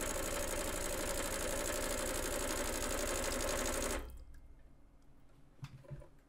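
Gaggia Classic Pro's vibratory water pump buzzing steadily as the freshly rewired machine is first switched on, then cutting off suddenly about four seconds in. A few light clicks and taps follow near the end.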